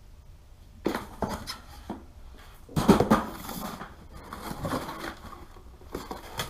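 Paper and packaging from a wiring kit box being handled: a series of irregular rustles and light knocks, loudest about three seconds in.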